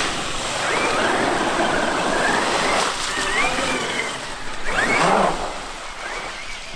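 Traxxas X-Maxx RC monster truck's brushless electric motor whining as it drives, the pitch rising and falling with the throttle over tyre and ground noise, with one sharp surge about five seconds in.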